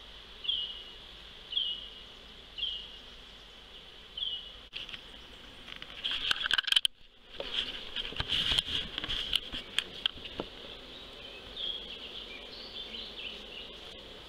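Honeybees buzzing around an opened nuc over a steady high insect drone, with a short chirp repeating about once a second for the first four seconds. From about six to ten seconds in come a run of knocks and rattles from handling.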